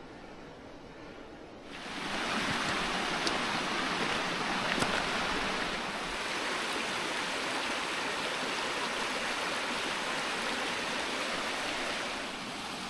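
Mountain stream rushing over rocks and a small waterfall, a steady roar that comes in sharply about two seconds in after a quieter start.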